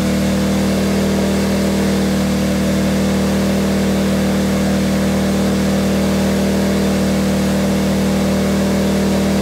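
Energizer eZV2000P inverter generator, a small single-cylinder four-stroke, running at a steady high engine speed under a heavy 1800-watt hairdryer load. The engine note holds one unchanging pitch with a hiss over it.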